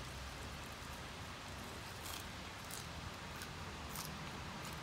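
Faint, crisp crackles of raw leafy greens being plucked from their stems and eaten, with a few small sharp clicks in the second half over a steady low hiss.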